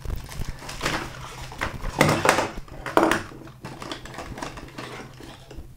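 A small white cardboard box being opened and handled, with packaging rustling and scraping in several short bursts. The loudest come about two seconds and three seconds in.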